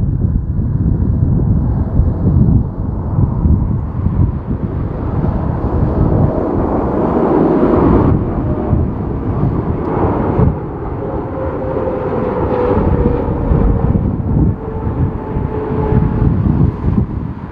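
Strong wind buffeting the microphone with a loud, gusty rumble, over a passing jet airliner whose engine tone falls slowly in pitch through the middle of the stretch.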